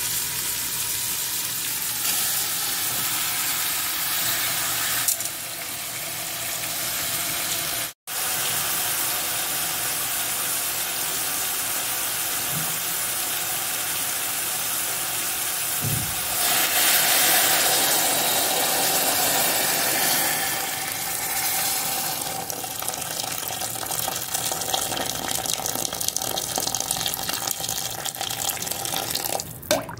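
Water running from a tap into a large metal cooking pot: a steady rushing hiss, cut off for an instant about eight seconds in and louder for a few seconds past the middle.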